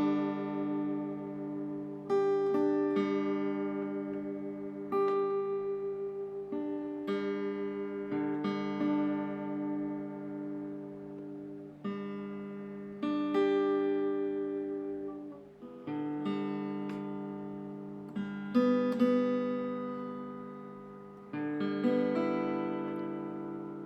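Background music: acoustic guitar chords, each struck and left to ring and fade, a new one every two seconds or so.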